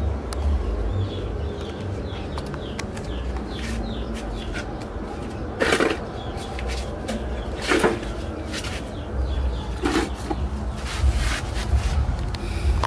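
Many short, high chirping calls, each falling quickly in pitch, repeated throughout over a low rumble, with a few louder noisy bursts.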